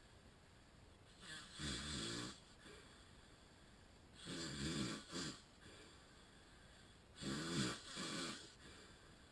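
A man with sleep apnea snoring in his sleep: three snores, each about a second long, coming about three seconds apart.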